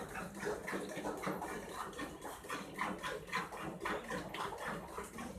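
Hand milking a cow: streams of milk squirting into a pail in quick, even spurts, about three a second.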